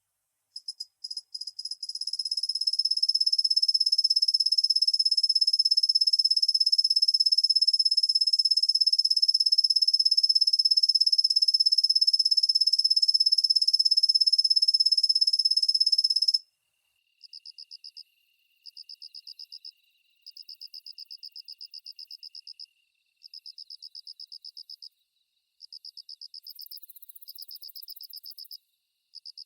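Kusahibari tree cricket (Svistella bifasciata) singing: a loud, very high, steady trill that starts with a few short chirps and then runs unbroken. About halfway through it stops and gives way to quieter trills in separate bursts of one to three seconds.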